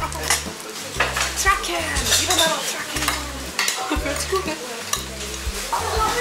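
Hagfish sizzling in foil over a portable gas burner, with chopsticks and tableware clicking and clattering against the foil and dishes.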